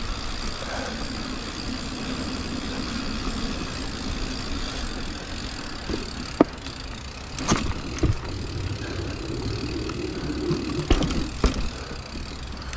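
Steady low rumble of a train running in the background, with a few sharp clicks and knocks in the second half.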